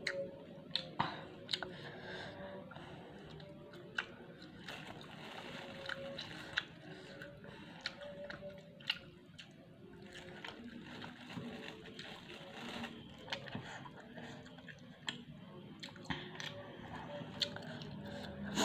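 A person chewing fried Indonesian snacks, basreng and cimol, close to the microphone: irregular sharp crunches with softer chewing between them.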